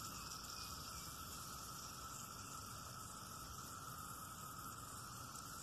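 Faint, steady background hiss with no distinct events.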